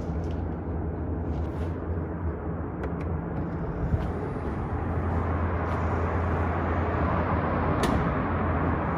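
Mercedes-Benz GLS 400d's 3.0-litre inline-six diesel idling with a steady low hum. The power tailgate closes and latches with a click about eight seconds in.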